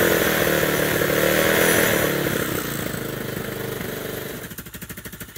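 A Chinese 250cc dirt bike's engine running at a fast idle, then slowing about four and a half seconds in to a slower, even pulsing idle as the carburettor's idle screw is adjusted.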